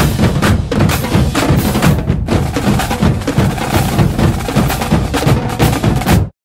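Loud percussion-driven background music with a busy drum rhythm, cutting off abruptly near the end.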